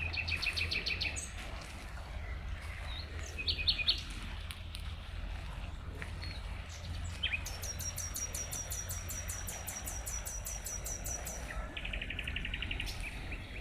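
Songbirds singing in a series of rapid trills of evenly repeated notes: a short trill at the start, a brief one around four seconds in, a long, high, fast trill in the second half, and a lower trill near the end, over a steady low rumble.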